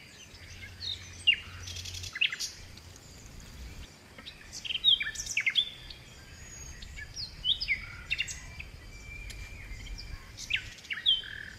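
Songbirds chirping, many short quick calls sliding up and down in pitch, scattered through the stretch.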